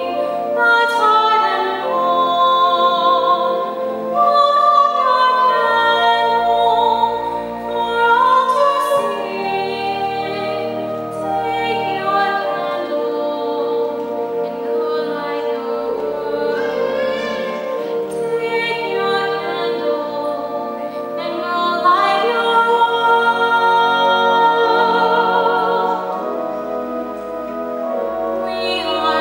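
A woman singing a solo gospel song, her voice wavering in vibrato on held notes, over sustained pipe organ chords with long low bass notes.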